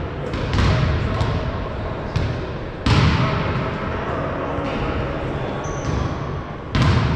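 Volleyball being struck and hitting the floor in a gymnasium: a few sharp smacks, the loudest about three seconds in and again near the end, each echoing in the hall over a steady background of room noise.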